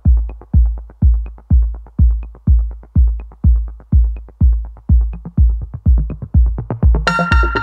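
Electronic background music: a deep, steady kick-drum beat about twice a second with a light tick on every other beat, joined by a synthesizer chord about seven seconds in.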